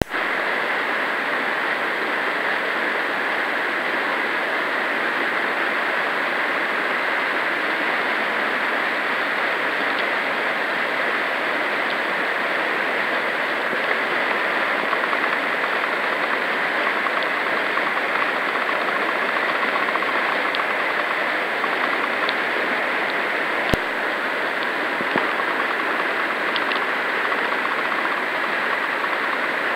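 Flooded whitewater rapids rushing: a steady, even water noise with no let-up. One sharp click is heard late on.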